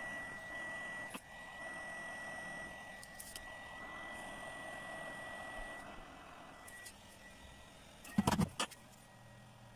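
Hot air rework gun blowing a steady hiss of hot air onto a chip on a circuit board, reflowing the fluxed solder under it, with a thin high whine running along. The airflow eases off about six seconds in, and a short clatter follows about eight seconds in.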